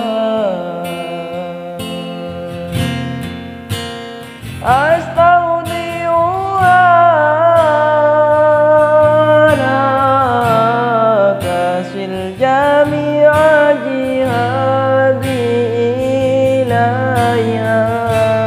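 A man singing a sad ballad in Arabic over acoustic guitar. About four seconds in his voice swoops up into long held notes with vibrato.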